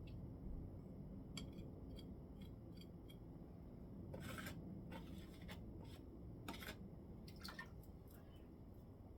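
Wet cement mortar being worked around a stone, faint: a few light clicks, then a run of short scraping strokes in the second half.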